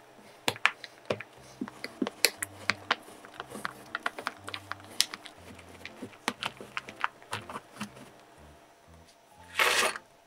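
Knife chopping a bar of dark couverture chocolate on a cutting board, sped up to triple speed: a run of sharp, irregular knocks and cracks, several a second. Near the end there is a brief rattling rush as the chopped chocolate pieces go into a glass bowl.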